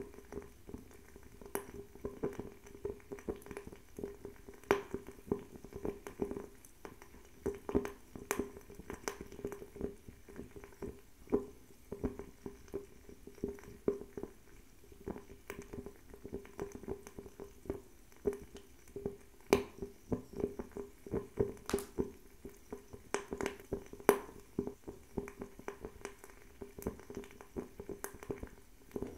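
Fire crackling, with frequent small irregular pops and a few louder snaps over a steady low hum.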